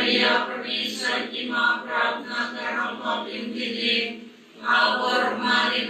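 Voices reciting a prayer together in a steady, chant-like tone, with a short pause about four and a half seconds in.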